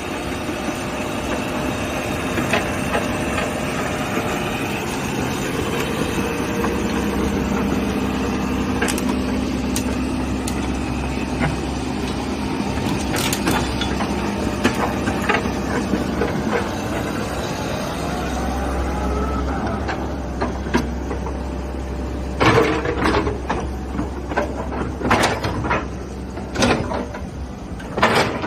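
Komatsu PC130-7 hydraulic excavator running, its diesel engine note getting heavier under hydraulic load at about seven seconds and again at about eighteen, with a rising hydraulic whine soon after. In the last six seconds a string of sharp metallic knocks and clanks is the loudest sound.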